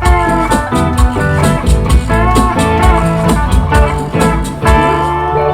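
Live band playing an instrumental ending with guitar over a steady drum beat; the beat stops near the end and the band holds a final chord.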